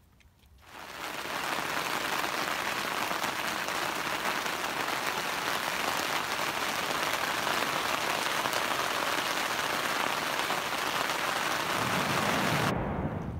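Rain falling on a tent, heard from inside as a dense, steady hiss. It starts about a second in and stops abruptly near the end.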